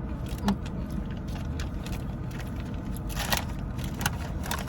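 Steady low rumble of a car interior, with irregular rustling and crinkling of plastic snack wrappers being handled, busiest about three seconds in.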